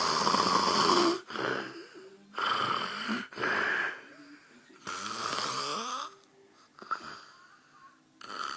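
A man snoring in his sleep: a run of loud snores of about a second each, with short quieter gaps between them, and a shorter, weaker one near the end.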